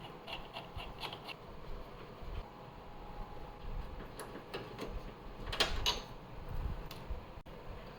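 Hand tools working the engine-mount bolts: scattered metal clicks and knocks, with a louder scrape a little past halfway.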